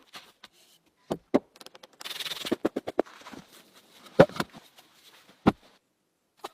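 Irregular sharp knocks and thuds, the loudest about four seconds in, with a brief burst of scraping about two seconds in.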